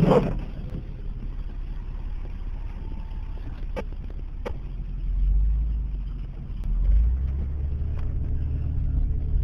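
Car interior noise while driving: a steady low engine and road rumble that swells louder twice around the middle, with a few faint clicks.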